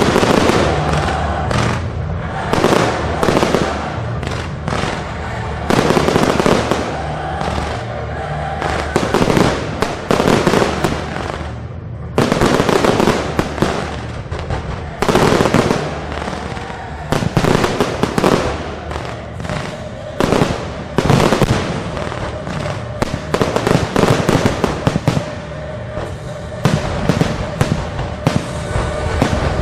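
Fireworks display: aerial shells bursting in rapid, dense clusters of bangs every second or two, with music playing underneath.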